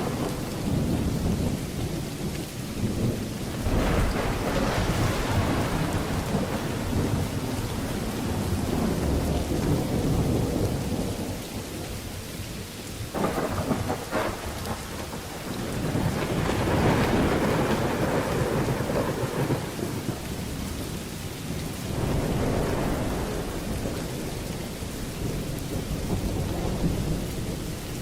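Steady heavy rain with rolling thunder; several long rumbles swell and fade, the strongest about halfway through.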